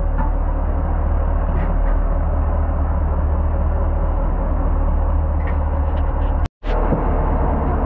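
Steady low drone of a fishing boat's engine running, with a brief complete dropout about six and a half seconds in.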